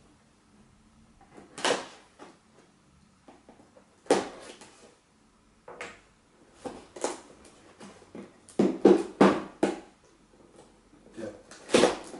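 Cardboard laptop box being opened by hand: short bursts of scraping and rustling cardboard, busiest about two-thirds of the way through.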